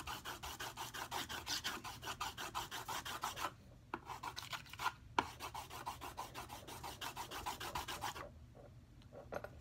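Colored pencil shading rapidly back and forth on paper: quick rubbing strokes, pausing briefly about three and a half seconds in and again near the end.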